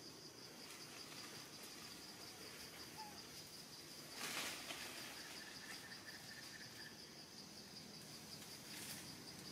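Faint, steady high-pitched insect trill, with a fainter second insect tone joining for a few seconds; a short burst of noise about four seconds in is the loudest moment.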